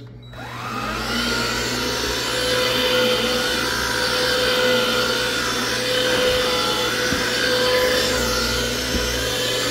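Black & Decker 20-volt cordless stick vacuum switched on, its motor spinning up over the first second. It then runs steadily with a high whine and rushing air as the floor head is pushed over carpeted stair treads.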